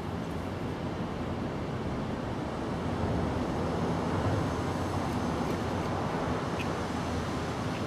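Steady low rumble and hiss of outdoor background noise, growing a little louder about three seconds in.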